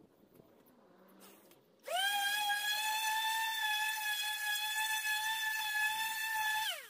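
Electric random orbital sander on a wooden chair armrest: its motor whine rises quickly to a steady, high pitch about two seconds in, holds, then drops in pitch near the end as the sander is switched off and winds down.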